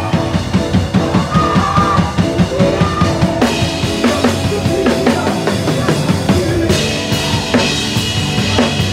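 Live worship band playing a groove, led by a close, loud drum kit played with sticks. A fast run of drum strokes in the first three seconds gives way to cymbal crashes about three and a half and again about seven seconds in, over the rest of the band's sustained notes.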